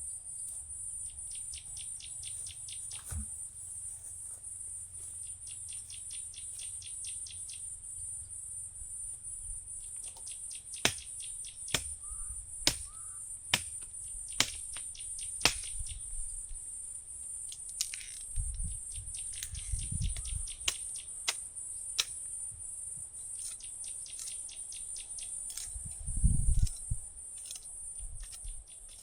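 A steady high-pitched drone of rainforest insects, with fast rattling click trains in the first several seconds and scattered sharp clicks later. Low rumbles come twice near the end, the louder one a few seconds before the close.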